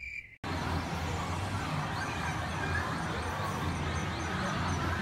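A pulsing, cricket-like chirp cuts off abruptly about half a second in. It gives way to the steady din inside a game centre: electronic jingles and music from crane-game machines over a low hum and general noise.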